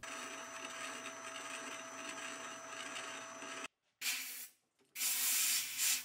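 Metal lathe running with a steady whine while an internal threading tool takes a pass cutting the acme thread inside a new lead screw nut. The sound cuts off suddenly a little past halfway, followed by two short bursts of scraping and rubbing.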